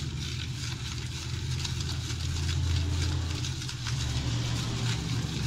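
Light sloshing and crackling of water swirled by hand in a small plastic bowl to dissolve aquarium salt, over a steady low mechanical hum.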